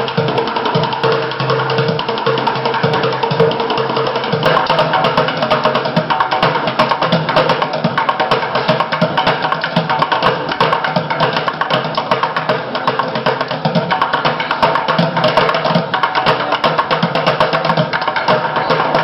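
Music with busy percussion: a fast, steady run of sharp clicks and drum hits over held notes.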